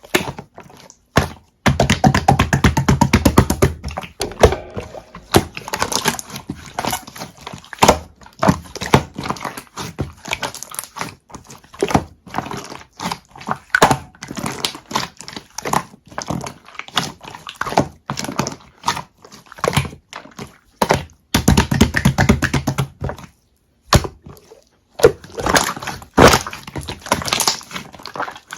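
Clear slime being handled: a steady string of wet clicks and pops, with two runs of rapid crackling clicks about two seconds long each.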